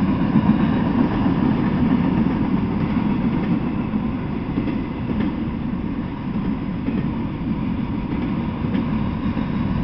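Freight train of enclosed autorack cars rolling past at steady speed: a continuous low rumble of steel wheels on the rails, with a few faint clicks.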